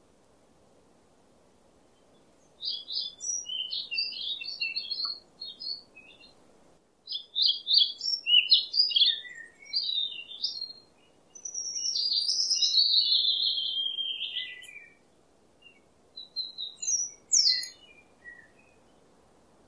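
Small birds chirping and twittering in quick, high phrases that come in bursts, starting a couple of seconds in, with a longer unbroken run of warbling in the middle and a few scattered notes near the end.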